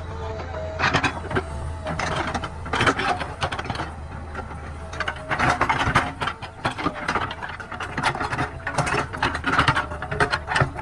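JCB 3DX backhoe loader working, its diesel engine running steadily under irregular clanking and rattling from the digging arm and bucket, with short hydraulic whines.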